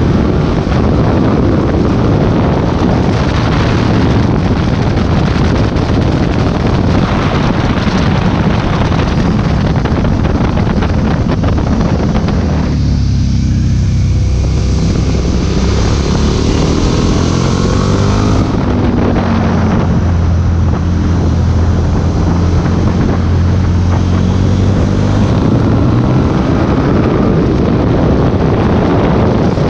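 Motorcycle engine running under heavy wind noise on the microphone while riding. For a few seconds about halfway through, the wind eases as the bike slows through a hairpin and the engine is heard more plainly, then it rises in pitch as the bike accelerates away.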